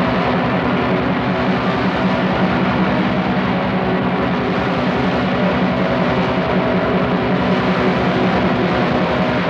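Raw black metal: a dense, lo-fi wall of distorted guitars over rapid drumming, holding a steady loudness.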